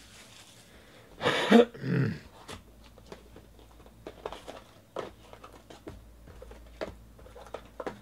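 A tight cardboard lid being dragged off a Bowman Sterling baseball card box: a loud, rough two-part scrape starting about a second in and lasting about a second. Light clicks and rustles follow as the box and the packs inside are handled.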